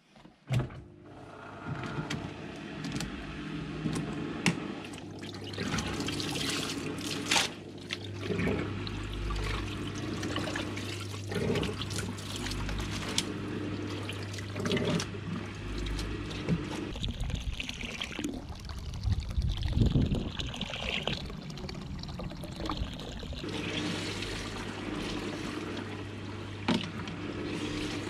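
Compact twin-tub washing machine running: a steady low motor hum with water sloshing and wet clothes being moved about in the tub. The hum stops for several seconds past the middle, then starts again.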